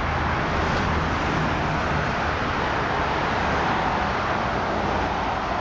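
Steady road traffic noise: a continuous wash of passing cars with a low engine hum underneath.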